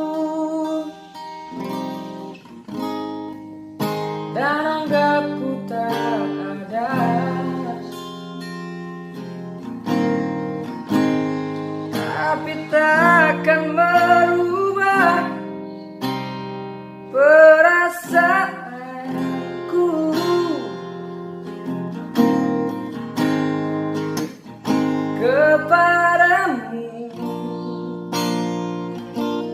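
A solo singer's voice, dry and without added effects, singing a ballad in phrases to a strummed and picked acoustic guitar.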